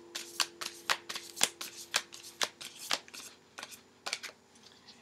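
A tarot deck being shuffled by hand: a quick run of crisp card flicks and slaps, thinning out after about three seconds and dying away.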